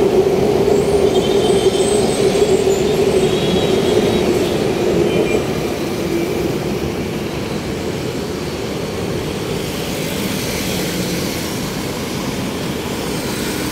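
Traffic noise from vehicles on a busy city road, with a steady hum that fades after about five seconds.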